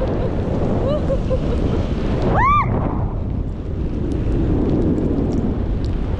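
Wind buffeting the microphone with a steady, heavy rumble. About two and a half seconds in, a brief rising-and-falling tone cuts through, with fainter short glides about a second in.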